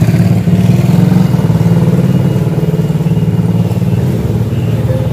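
An engine running steadily close to the microphone, with a fast, even throb.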